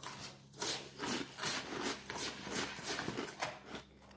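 Rhythmic crunching of chocolate crackle mixture, puffed rice bound with melted copha and cocoa, about two to three crunches a second.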